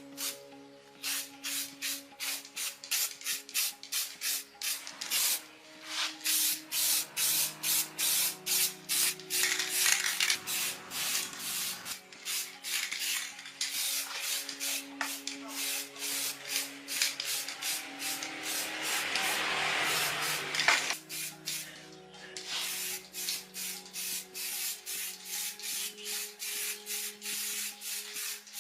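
Repeated hand rubbing strokes, about two a second, with a few seconds of steadier hiss about two-thirds of the way in, over soft background music with held notes.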